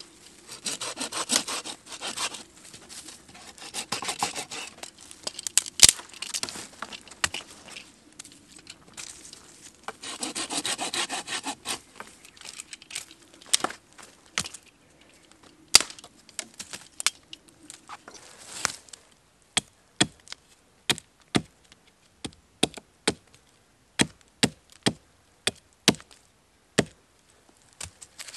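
Folding hand saw cutting through a stick in bursts of back-and-forth strokes. About two-thirds of the way in the sawing stops and a hatchet strikes wood in a steady run of short, sharp knocks, about two a second.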